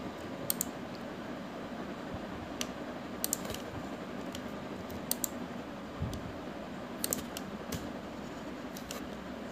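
Scattered sharp clicks of a computer mouse and keyboard, several in quick pairs, over a steady background hiss.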